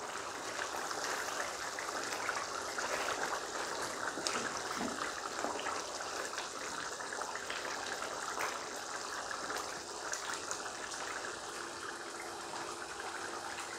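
Thick beef curry bubbling steadily at a simmer in a nonstick pan. Through the first half it is stirred with a wooden spatula, giving light scrapes and taps.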